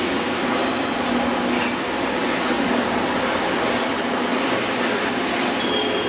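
Steady mechanical din of an automated machining cell, with its vertical lathes, conveyors and gantry robots running. A few faint brief hums and whines show over the even noise.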